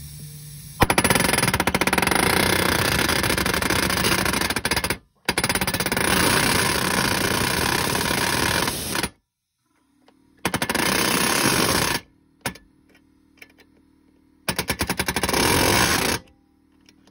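Pneumatic mini palm nailer hammering a 3-inch 10d nail through an L90 shear transfer tie into a wooden double top plate, in four bursts of rapid blows, the first two about four seconds each and the last two shorter.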